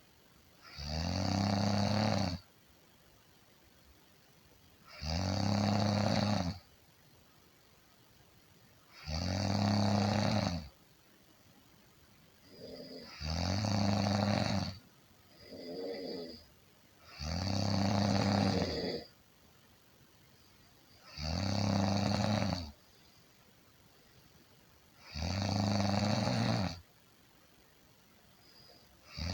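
A person snoring in slow, regular breaths: a loud, pitched snore about every four seconds, each lasting about a second and a half. Near the middle, two weaker, shorter snores come between the loud ones.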